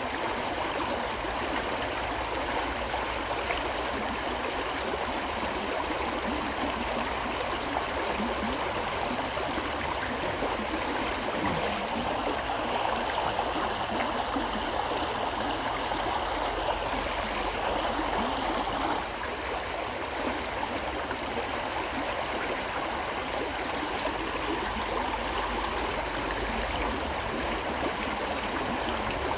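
River water flowing steadily, a continuous babbling rush, dipping slightly in level about two-thirds of the way through.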